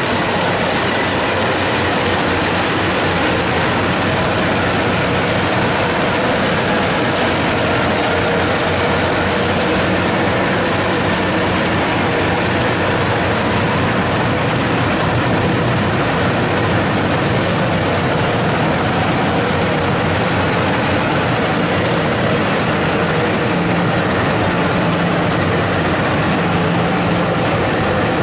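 Rice combine harvester running steadily, its engine and threshing machinery making a constant, dense mechanical noise.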